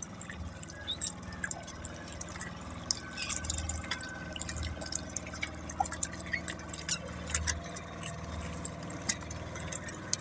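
Water lapping and dripping against the side of a small outrigger boat, with scattered light clicks and ticks.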